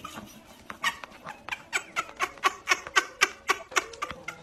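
Chickens pecking rapidly at a tablet's glass screen: a quick run of sharp taps, about four or five a second.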